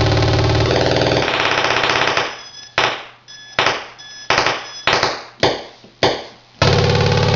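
Circuit-bent Atari Punk Console, a square-wave synth built on two 555 timers, putting out a harsh buzzing drone. About two seconds in, the drone breaks into about six sharp blips, each fading fast, a little over one a second. Near the end the full buzz suddenly comes back.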